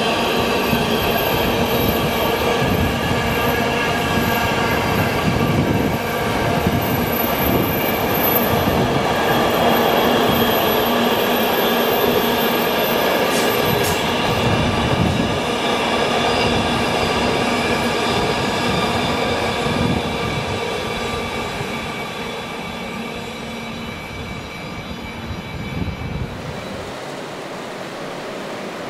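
Container wagons of a long freight train rolling past on the rails: a steady rumble with repeated low thuds and a set of steady whining tones from the wheels. It grows quieter over the last several seconds.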